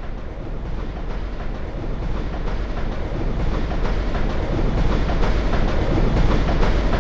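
Sound effect of a train approaching, its rumble growing steadily louder.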